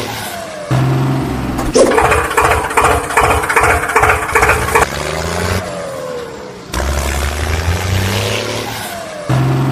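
Engine sound effect playing on a loop: a low steady hum, then a stretch of rhythmic chugging, then a falling rev, the cycle coming round again about every seven seconds.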